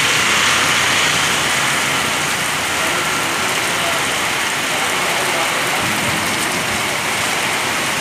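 Heavy rain pouring down steadily, an even, dense hiss of rain on the road and trees.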